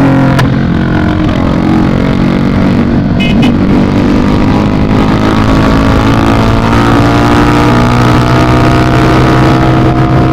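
Yamaha Fazer 250's single-cylinder engine running through a loud exhaust while riding. The engine note shifts in pitch a few seconds in, then holds steady.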